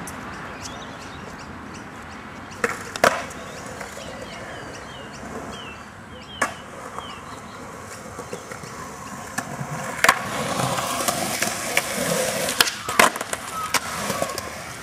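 Skateboard on concrete: sharp clacks of the board, a pair about three seconds in and one more a little after six seconds, then wheels rolling from about ten seconds with loud clacks at the start of the roll and again near thirteen seconds.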